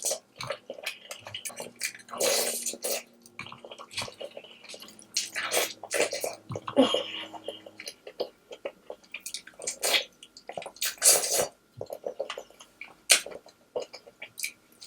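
Close-up wet eating sounds of a seafood boil: slurping, sucking and chewing on sauce-covered seafood, in irregular bursts every second or few.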